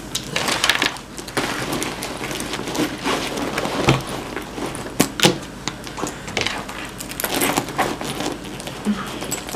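Close-up handling of a small backpack: rustling and fumbling with scattered sharp clicks, the loudest a few taps about four and five seconds in.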